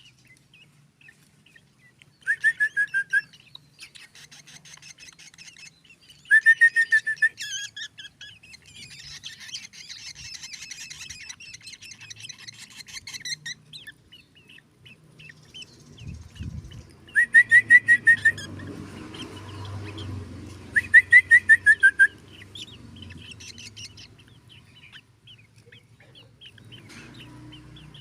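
Black drongo singing: four loud bursts of fast repeated notes, each about a second long, with softer chattering and twittering in between.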